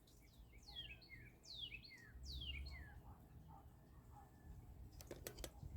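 Birds singing faintly: a run of quick, down-slurred whistled notes, several in the first three seconds, then a few sharp clicks about five seconds in.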